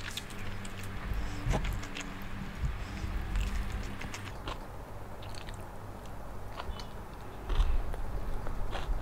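A person chewing and biting food close to the microphone, with scattered wet clicks and crunches and a louder stretch near the end.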